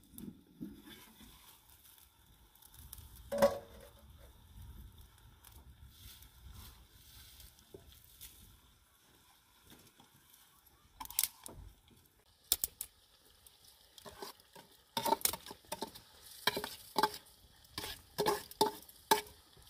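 Metal cookware knocking and clinking: one solid knock about three seconds in, a few sharp clicks near the middle, then a quick run of ringing clinks near the end as a slotted metal skimmer taps and scrapes against a metal cooking pot.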